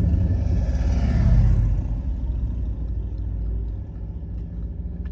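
A low rumble that swells to a peak about a second in, then fades to a steadier, quieter rumble.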